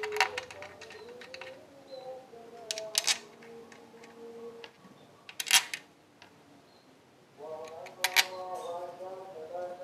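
Scattered sharp clicks and knocks of tools and hard parts being handled during work on a scooter's cooling system, the loudest about five and a half seconds in, with a pitched, voice-like sound behind them for most of the time.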